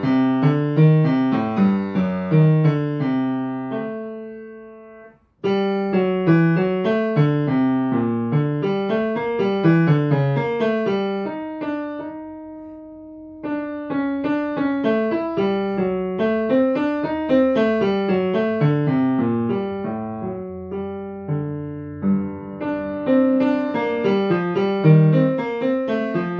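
Grand piano played with the left hand alone: an improvised single line of notes in the bass and tenor register, in baroque style like a cello sonata. The line stops briefly about five seconds in and holds one long note around halfway before running on.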